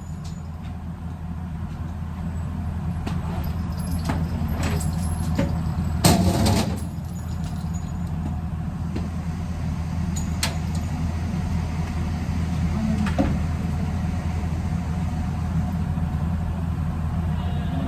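Steady low rumble of a car driving, building over the first couple of seconds. A few light clicks sit on top, with a louder knock about six seconds in.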